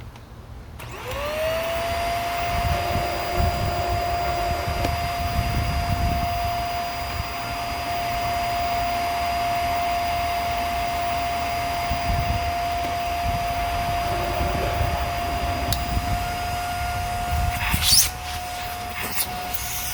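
Hoover Air Steerable upright vacuum switched on about a second in, its motor spinning up quickly to a steady, high whine over a rush of air. Near the end a short, louder burst of noise cuts across the run.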